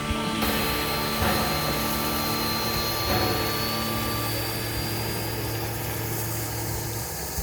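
Steady hiss of a steam locomotive letting off steam, with a faint high whine slowly rising in pitch and a low hum that stops about seven seconds in.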